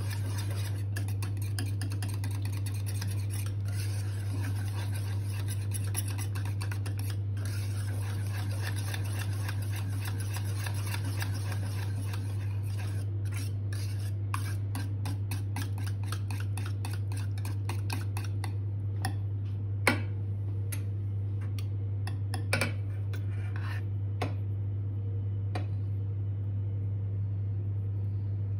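Wire whisk stirring thick chocolate pudding in a stainless steel pot: a fast, continuous scraping and clinking of the wires against the metal. About two-thirds of the way through, the scraping thins to scattered clinks and a few sharper taps on the pot. A steady low hum runs underneath throughout.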